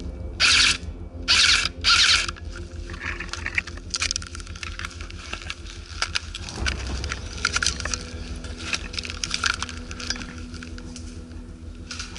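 Four loud crunching footsteps through dry ground cover in the first two seconds. Then quieter scattered clicks and rattles of carried gear.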